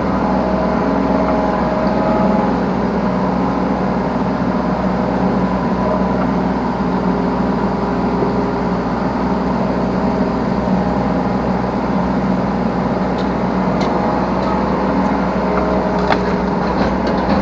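Yanmar B3 Sigma 3-tonne mini excavator running steadily under work, heard from the operator's seat: a constant diesel engine sound with hydraulic tones shifting in pitch as the controls are worked, and a few sharp clicks near the end.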